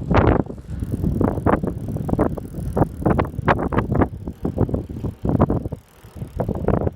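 Restored Raleigh Cameo bicycle being ridden over rough ground, its frame and fittings rattling in irregular jolts, several a second, over a steady low rumble with wind buffeting the microphone.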